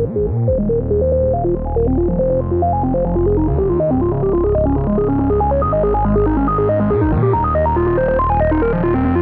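Instrumental section of an electronic song: quick synthesizer and keyboard notes over a steady bass line, muffled at first and gradually brightening.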